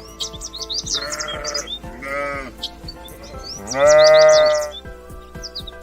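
Farm animal bleating: three calls, the last the loudest and longest, about four seconds in. Background music with quick high chirping notes plays underneath.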